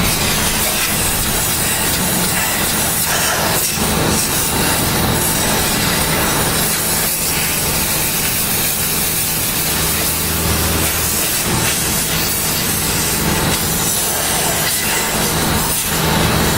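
Dry vapor steam cleaner's nozzle jetting steam in a steady, loud hiss onto CNC machine surfaces to blast off chips and grease, over a steady low hum.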